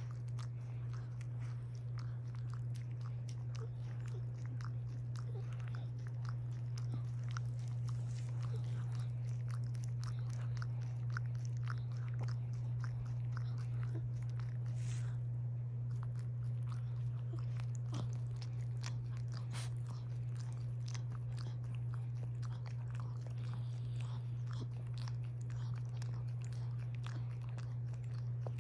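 A small dog licking and grooming another dog's head and ear: a steady run of short wet clicks and smacks from its tongue and mouth. A steady low hum runs underneath throughout.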